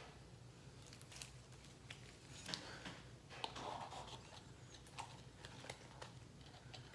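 Faint scattered clicks and small crackles of slime being handled and squished by hand, with a low steady hum underneath.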